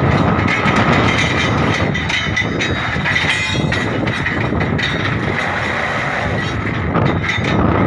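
Truck-mounted borewell drilling rig running loudly and steadily, a dense mechanical noise, with a brief rapid clatter about three seconds in.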